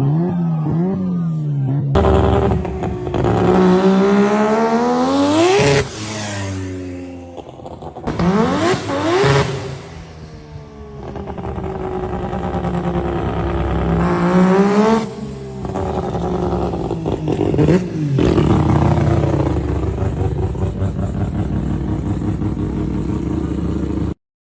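Mazda RX-7 rotary engine exhaust, idling and being revved repeatedly: one long climb to a peak around six seconds in, then several shorter blips, each falling back to idle. There is an abrupt change of sound about two seconds in, and the sound cuts off suddenly near the end.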